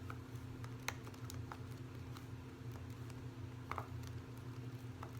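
A few light, scattered clicks and taps from small plastic pop-it toys being handled, over a steady low hum.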